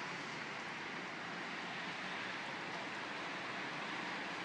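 Steady, even hiss of outdoor city street ambience, with no distinct sound standing out.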